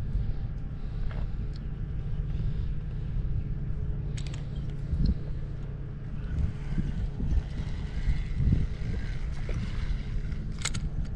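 Wind buffeting the microphone as a steady low rumble, with a few light clicks from handling the rod and spinning reel, the sharpest near the end.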